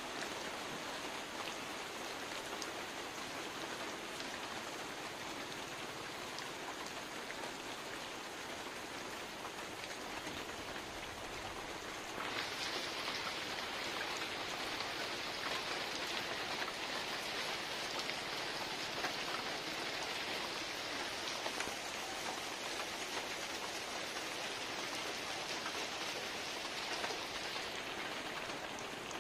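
Heavy rain falling steadily on river water and moored boats, an even hiss that grows louder and brighter about twelve seconds in.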